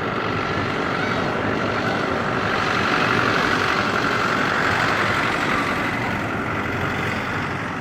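Boeing 777-300ER's twin GE90 jet engines at takeoff thrust: a steady engine noise with a whine running through it, swelling a few seconds in and beginning to fade near the end.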